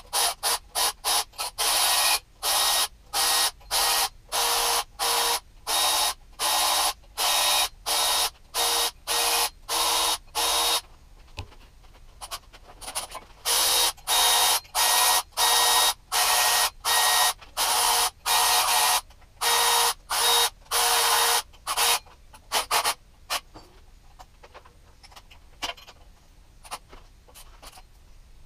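Ratchet wrench clicking in quick repeated bursts, about two a second, while loosening bolts on the cylinder head of a Toyota 1UZ-FE V8, likely the camshaft cap bolts. There is a short pause about eleven seconds in, then longer bursts that stop about three quarters of the way through.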